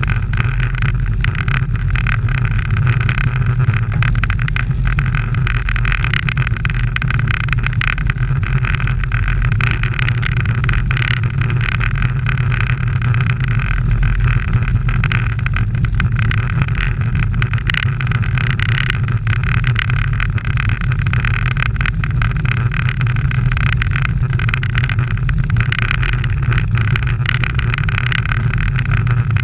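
Steady wind rushing over the microphone of a bicycle-mounted camera, with a low rumble from road tyres rolling on asphalt at riding speed.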